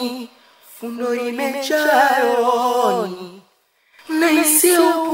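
A single voice singing a slow Swahili song without accompaniment, in long held notes with a wavering vibrato. The phrases break off briefly about half a second in and again for about half a second near three and a half seconds in, before the singing resumes.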